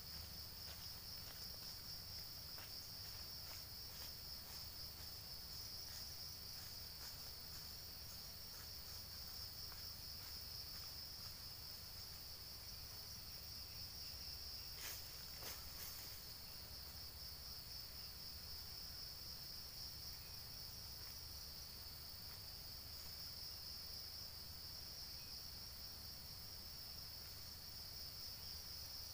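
Steady high-pitched insect chorus, like crickets, with a faint pulsing shimmer. A few sharp clicks sound about halfway through.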